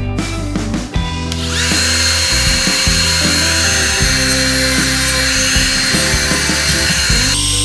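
Background guitar music, with an electric power tool starting about a second and a half in and running steadily, its high whine rising briefly as it spins up.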